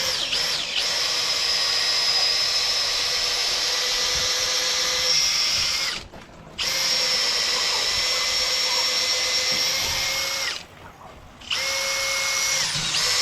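Cordless drill on its low setting boring into black locust timber with a screw-tipped self-feeding bit: a steady motor whine in three long runs, stopping briefly twice, about six seconds and ten and a half seconds in. The bit is gumming up and no longer wants to bite.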